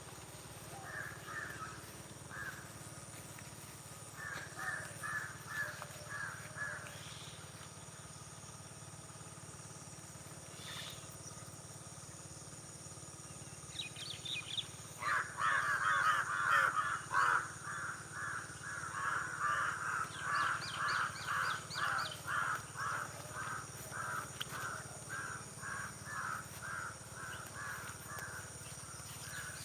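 Birds calling in a morning field: short calls repeated in runs, a few early on and then a long fast series from about halfway through, with fainter higher chirps now and then.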